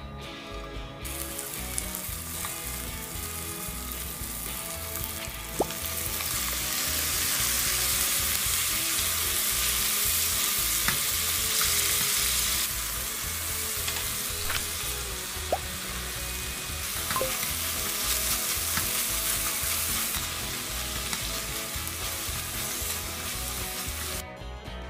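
Onions, green onion, chili and then bulgogi beef sizzling as they are stir-fried in oil in a stainless steel frying pan and stirred with wooden chopsticks. The sizzle starts about a second in, grows louder from about six seconds and cuts off just before the end, with a few light clicks along the way.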